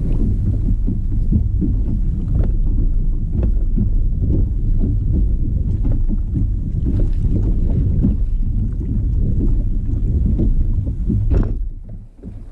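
Wind buffeting the microphone in a heavy low rumble, with small waves slapping and knocking against a kayak hull. A sharper knock comes near the end, and the rumble drops for a moment after it.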